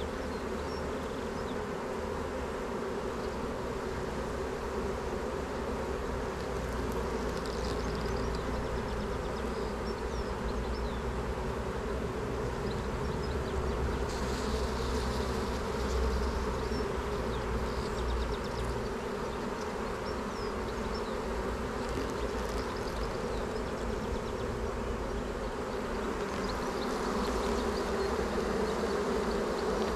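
Honeybee colony buzzing steadily on the open hive and the frames being lifted out: a dense, even hum of many bees.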